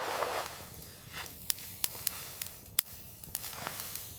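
Small wood cooking fire crackling, with irregular sharp pops and a soft rustle at the start.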